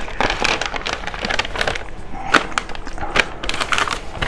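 Paper shopping bag rustling and crinkling as hands open it and reach inside, an irregular run of crackles throughout.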